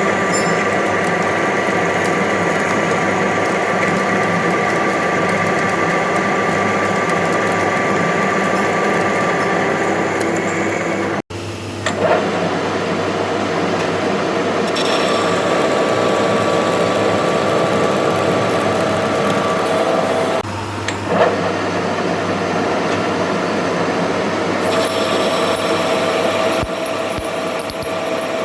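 Metalworking machine tool running steadily, with the noise of metal being machined. The sound drops out for an instant about eleven seconds in and changes character again about twenty seconds in.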